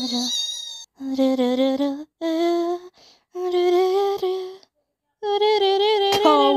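A human voice humming long held notes in about five phrases, the pitch wavering slightly, with short pauses between them.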